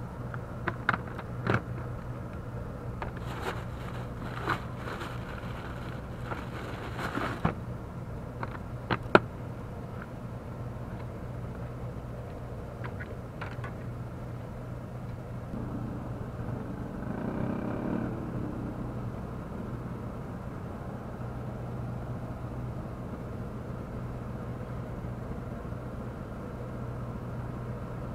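Small clicks and short scrapes of fishing tackle being handled, most of them in the first nine seconds with a sharper click near the end of that run, over a steady low hum. A broader swell of noise rises and fades in the middle.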